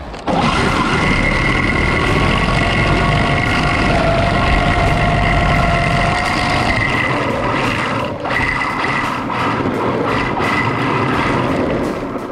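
Traxxas Rustler 4x4 VXL RC car's brushless electric motor and drivetrain whining steadily under throttle, over a hiss of water spray from its hard 3D-printed plastic tires on wet pavement, heard from a camera mounted on the car. The whine dips briefly about two thirds of the way through.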